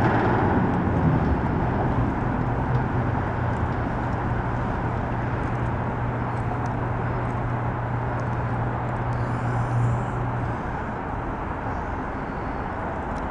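A steady low motor hum over a constant outdoor rush of noise; the hum stops about ten seconds in, leaving only the rush.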